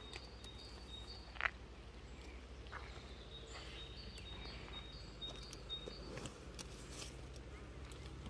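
Quiet pasture ambience: faint, high, repeated bird chirps over a low steady rumble, with one sharp click about a second and a half in.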